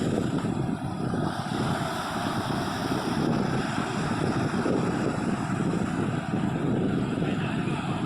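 Sea surf washing on a beach, heard under a steady low rumble of wind buffeting the microphone.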